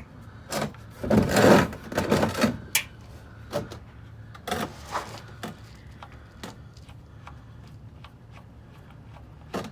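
An oil drain pan being slid into place under the car: a scrape about a second in, then a string of irregular knocks and clicks, with one more knock near the end.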